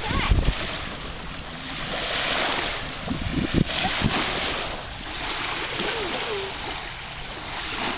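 Small waves washing on a lakeshore: an even hiss that swells and fades every couple of seconds, with wind on the microphone.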